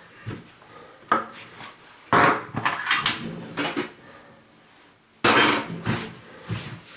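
Dishes and cutlery being handled and set down: a series of clattering knocks and clinks with short pauses, the loudest cluster in the middle and another sharp clatter near the end.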